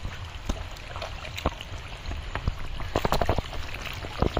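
Wet mud squelching and splattering in a series of short irregular splats as hands and knees work through soft pond mud, with a cluster of splats about three seconds in and another near the end, over a steady low rumble.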